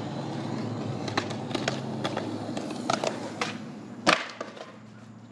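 Skateboard wheels rolling over concrete with a steady rumble and a few sharp clicks, then one loud crash about four seconds in as the skater comes off the board and falls onto the paving; the rolling dies away after it.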